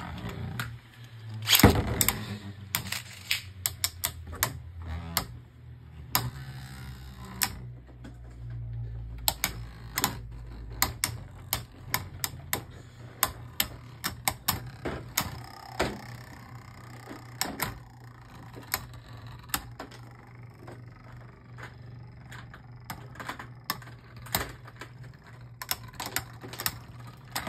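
Two Beyblade Burst spinning tops battling in a plastic stadium. They clack against each other and the stadium walls in irregular sharp clicks, sometimes several a second, and one of the loudest hits comes about two seconds in.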